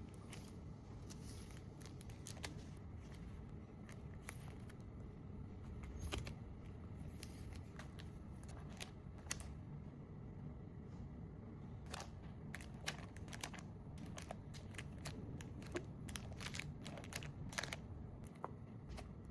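Paper and plastic packaging being handled: irregular crinkles, taps and clicks, coming thicker in the last third, over a low steady hum.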